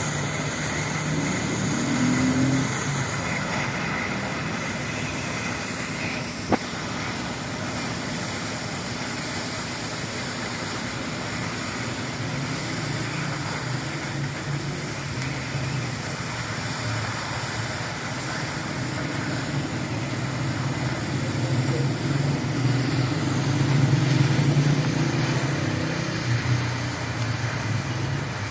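Steady machine noise: a continuous hiss over a low engine-like hum that swells about three-quarters of the way through, with one sharp click about six seconds in.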